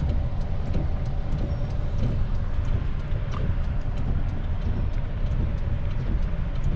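Truck engine running, a steady low rumble with a faint hum, with scattered light ticks of rain striking the truck.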